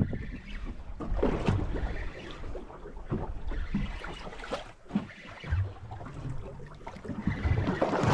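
Wind buffeting the microphone and water slapping against the hull of a small boat drifting at sea, in uneven gusts and splashes.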